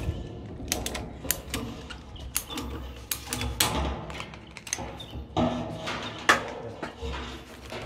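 Grey PVC water pipes and elbow fittings knocking, clicking and scraping as they are handled and pushed together, a string of short sharp knocks with one of the loudest about six seconds in.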